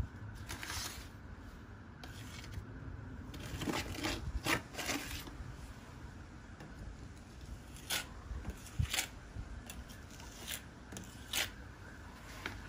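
A handful of short scrapes and clicks from cement mortar being worked in a bucket, a cluster about four seconds in and single ones later, over a low steady rumble.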